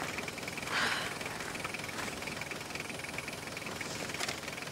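Steady outdoor insect chirring, a fine rapid pulsing at one high pitch, with a brief hiss about a second in and a sharp click near the end.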